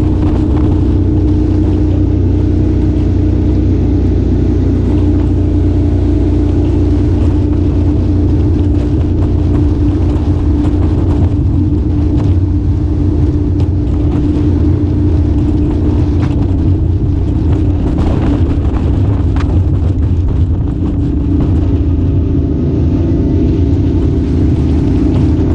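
Boat motor running steadily at constant speed, a loud, even drone with no change in pitch.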